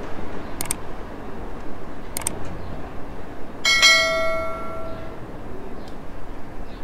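Sound effects of an on-screen subscribe-button animation: two short mouse clicks, about half a second and about two seconds in, then a notification-bell chime about three and a half seconds in that rings out and fades over about a second and a half. Steady background noise runs underneath.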